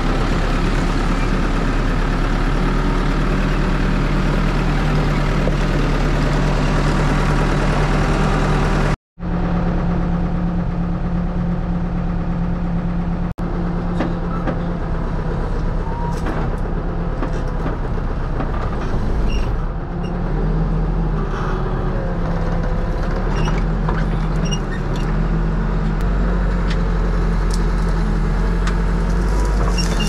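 Backhoe loader's diesel engine running steadily, heard from the operator's seat, with a brief break in the sound about nine seconds in. In the second half the engine runs on while the backhoe digs, with occasional light knocks.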